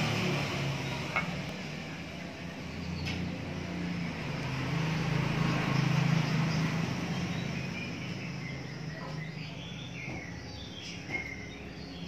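Background ambience: a low steady hum that swells for a few seconds in the middle, a couple of sharp clicks, and short bird chirps near the end.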